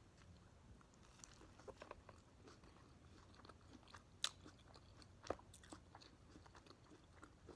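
Faint close-miked chewing of a spicy sriracha burger on toasted bread: soft wet mouth sounds with scattered small crackles and a few sharper clicks.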